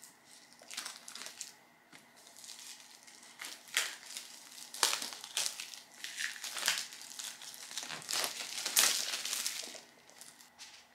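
Clear plastic shrink wrap crinkling in irregular bursts as it is pulled off a cardboard product box by hand, with the loudest crackle near the end.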